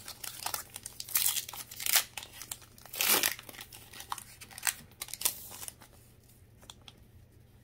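Foil wrapper of a Pokémon booster pack crinkling and tearing as it is ripped open by hand, in a run of short rustles with the loudest tear about three seconds in. The rustling dies away about six seconds in.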